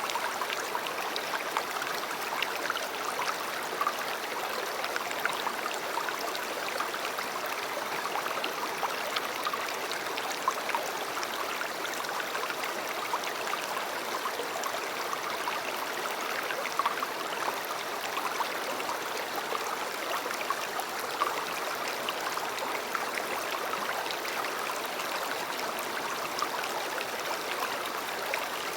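Shallow river water flowing and babbling steadily over stones, a continuous rush with fine splashy crackle.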